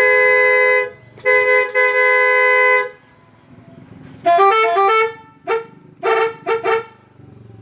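Telolet horn, a multi-tone vehicle horn driven by an 18-tone module, sounding two long held chords. It then plays a quick run of stepped notes and finishes with three short blasts.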